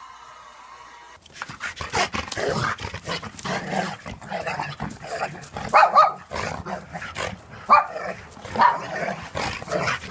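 A dog barking repeatedly in short, sharp barks, the loudest about halfway through and again near the end, over rustling and scuffling. The barking starts about a second in.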